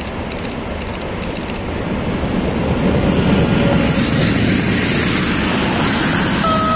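A Lithuanian Railways ER20 (Siemens Eurorunner) diesel-electric locomotive passes close by at the head of a freight train. Its engine and wheels on the rails grow louder over the first few seconds, then the freight wagons roll past in a steady rumble.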